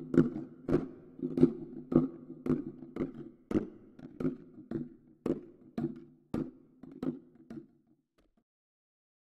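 Soundtrack pulse of short knocks, about two a second, over a low droning tone. It fades away about eight seconds in and leaves silence.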